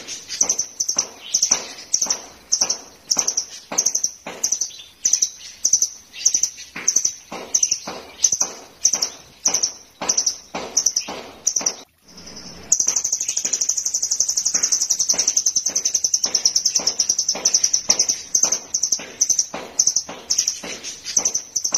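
Caged blue nuthatch (rambatan doraemon) calling, sharp high notes repeated about two a second. Near the middle there is a brief break, after which a continuous high trill runs under the repeated notes.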